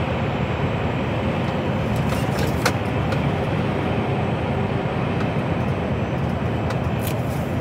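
Steady engine and road noise of a lorry at cruising speed, heard from inside its cab, with one faint click a little under three seconds in.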